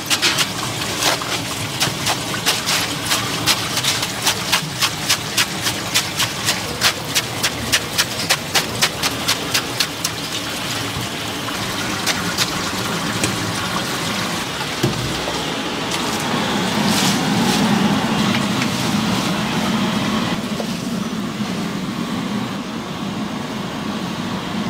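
Cleaver chopping cabbage in a plastic basket, fast, even strokes about three a second, with tap water running over the leaves. The chopping thins out about halfway through, and a steadier, lower noise builds in the second half.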